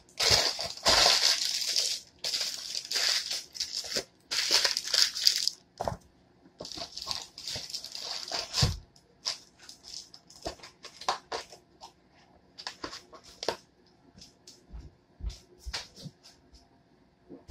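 Rustling and crinkling from hands working at a kitchen counter, in long bursts over the first half, then scattered light clicks and knocks.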